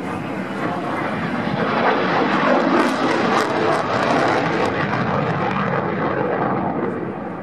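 F-16 Fighting Falcon's jet engine in afterburner on a display pass: a broad rushing jet noise that builds to its loudest about two to three seconds in, with crackle at the peak, then eases a little as the jet pulls away.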